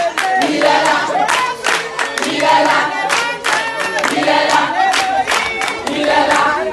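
A group of voices singing together, with a steady beat of sharp strokes running under the song.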